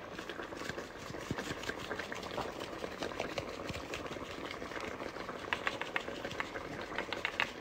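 Tomato and ground-pork spaghetti sauce bubbling in a pot on the stove, a steady simmer full of small pops, with short clusters of sharper ticks a little after five seconds and again near the end.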